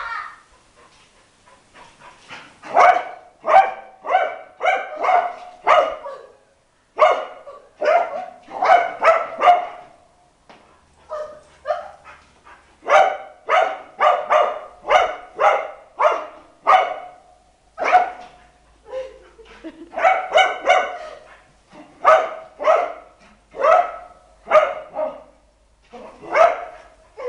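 A black-and-white dog barking excitedly while it plays, in runs of several barks about two a second, with short pauses between the runs.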